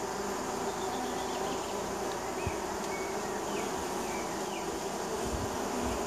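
Many honey bees buzzing at the entrance of a hive, a steady hum of wingbeats from bees landing and taking off.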